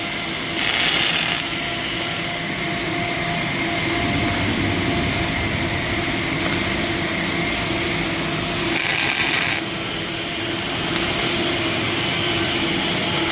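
A power tool running steadily with a hum, with two brief louder hissing surges, about a second in and about nine seconds in.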